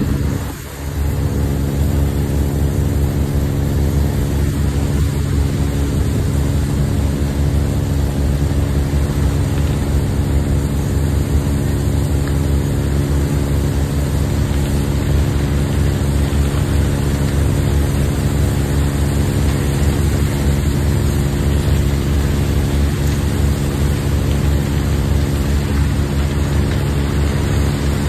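Heavy diesel engine of the ore-unloading machinery running steadily with a deep, even hum. The level dips briefly about half a second in.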